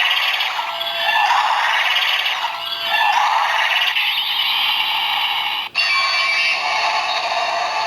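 Electronic form-change sound effect and music from a DX Ultraman Trigger Power Type toy, played through its small speaker. It comes in swelling phrases, thin with no bass, breaks off briefly a little past halfway, then carries on steadier.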